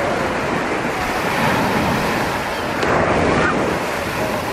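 Small waves breaking and washing up a sandy shore in a steady rush of surf, swelling a little about three seconds in, with wind on the microphone.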